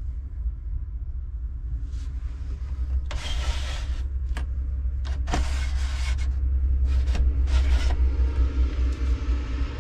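The pleated blind of a camper van's hinged plastic window is slid along its frame: several short sliding swishes and a click. A steady low rumble runs underneath.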